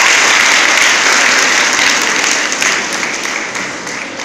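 Audience applauding, the clapping loud at first and steadily dying away.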